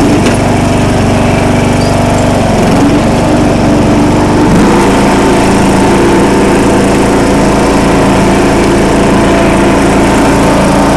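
John Deere L100 riding mower's 17-horsepower OHV engine running steadily as the mower drives off in fourth gear. The engine note changes about four and a half seconds in.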